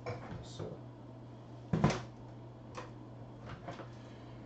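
Light clicks and taps of small parts being handled on a repair bench, with one louder knock just under two seconds in, over a steady low hum.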